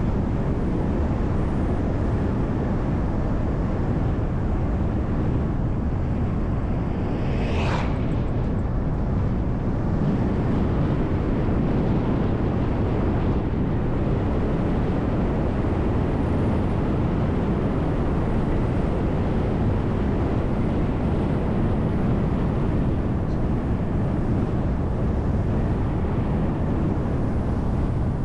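City bus travelling at steady road speed: a constant low rumble of engine and tyres on the road. A short high-pitched sound cuts in about eight seconds in.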